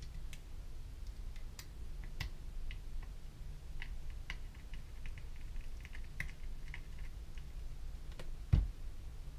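Scattered small clicks and ticks as an airsoft gearbox and its screws are handled and screwed together, with one heavier knock about a second before the end. A faint steady low hum runs underneath.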